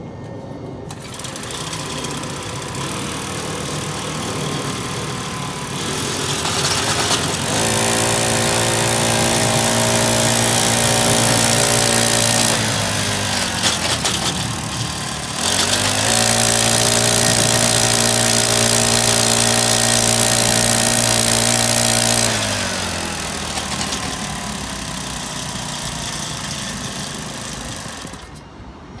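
Iseki Agrip CAC245 mini tiller's 1.6 hp four-stroke engine running at low speed, then revved up to a high, steady pitch twice for about five seconds each, dropping back between and after. It shuts off near the end.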